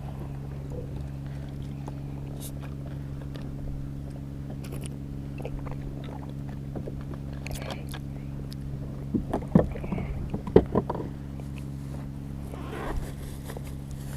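A steady low mechanical hum with scattered light clicks, and a short cluster of louder knocks about nine to eleven seconds in.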